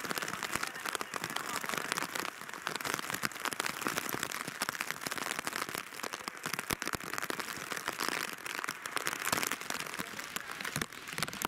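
Heavy tropical-storm rain pattering and splashing on surfaces: a dense, even crackle of many drops.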